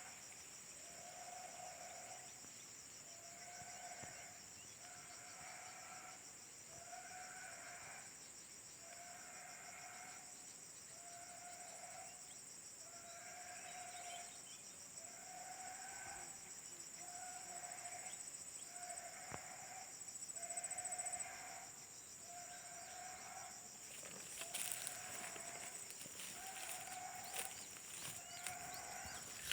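An unidentified animal call, a short held note repeated evenly about once every second and a half, over a steady high drone of insects.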